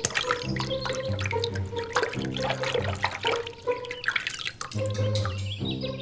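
Background music with a repeating bass line and steady held notes, over many short dripping or splashing ticks.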